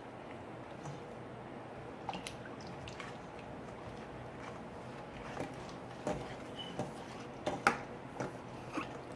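Borax slime being stirred in a bowl: faint wet squishing with a few sharp clicks scattered through.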